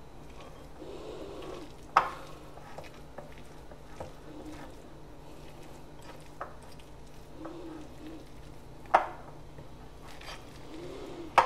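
A spoon stirring shredded chicken and cheese together in a glass bowl: soft scraping and shuffling, with a few sharp clinks of the spoon against the glass, the loudest about two seconds in, near the end, and at the very end.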